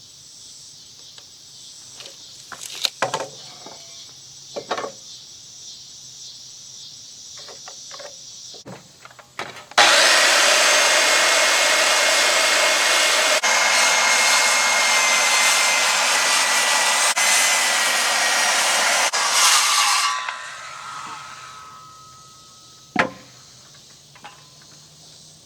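Power saw cutting lumber: one loud, continuous run of about ten seconds starting about ten seconds in, then the blade winding down. A few knocks of boards being handled come before it and one sharp knock after, over a steady chirring of crickets.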